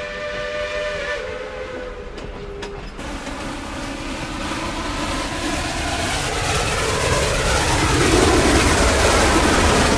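Steam locomotive whistle sounding a chord of several steady tones, which cuts off about three seconds in; then the rushing noise of a running train rises and keeps getting louder.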